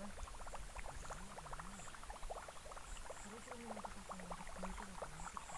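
Frogs calling: a dense, irregular patter of quick clicks, with a few low wavering croaks underneath.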